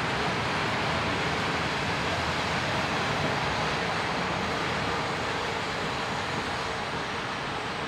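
Regional passenger train rolling along the track, a steady even rumble and hiss with no distinct clicks, slowly fading.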